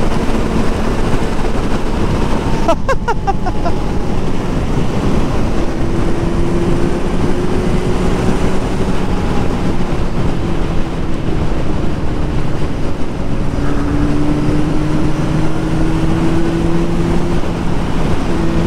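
Kawasaki Z900's inline-four engine with an aftermarket performance exhaust, running hard at high road speed under heavy wind rush on the microphone. The engine note holds steady and climbs slowly, with a brief sweeping sound about three seconds in.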